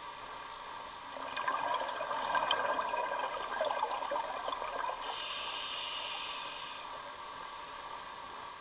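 Scuba diver's breathing heard underwater through the regulator: about four seconds of bubbling exhaust bubbles, then a higher, steadier hiss of the next breath drawn in.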